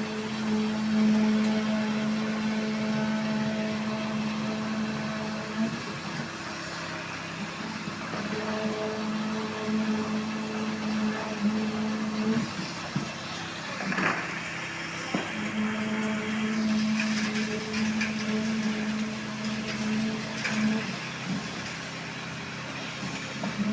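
Machinery on a concrete pour running with a steady hum that drops out and returns several times. Knocks and clatter come in the middle.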